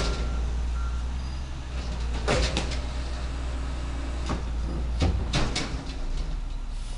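Peterbilt garbage truck with an Amrep automated side loader, its diesel engine running low and steady while the lifting arm dumps a cart. Metal clanks and bangs come several times. A back-up beeper sounds briefly at the start.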